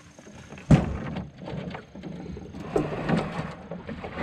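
A sharp, loud thunk as a backpack is dropped into an aluminum canoe, then smaller knocks and a rough scraping rumble as the canoe's hull is pushed over the shore gravel.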